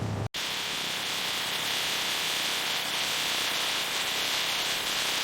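A steady, even hiss that starts abruptly just after the start.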